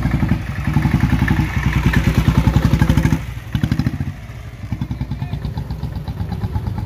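Diesel-engined 1996 Royal Enfield Bullet with an Indori silencer, running as it pulls away and rides off, a steady fast train of exhaust beats. The beat drops sharply about three seconds in, then picks up again.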